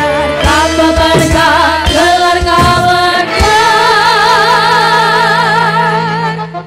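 Live campursari music through a PA: women singing to the band, with sharp drum hits in the first half. From about halfway they hold one long note with wide vibrato, which fades out near the end.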